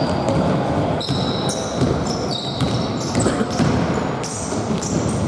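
A basketball game in play: sneakers squeaking on the court floor in many short high squeaks, with the ball bouncing and other knocks over the low noise of the hall.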